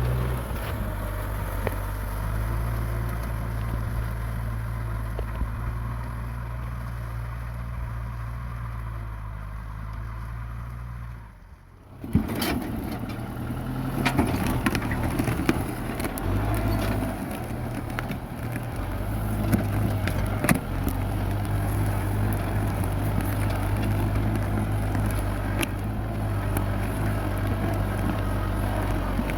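Kubota M6040 tractor's diesel engine running steadily at a low even hum. The sound drops out for a moment near the middle, then the engine resumes with scattered clicks and knocks over it.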